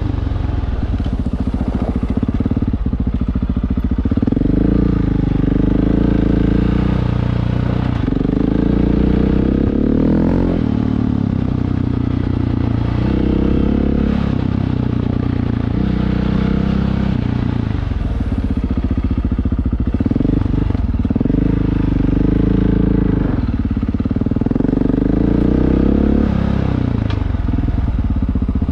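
Rally motorcycle engine running hard, its revs rising and falling over and over as the rider works the throttle.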